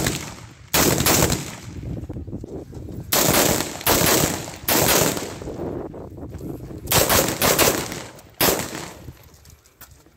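AR-style semi-automatic rifle firing about seven single shots in irregular groups, each crack followed by a short echo.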